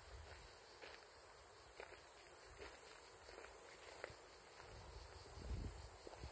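Cicadas droning in one steady, high-pitched band, with faint footsteps on the path.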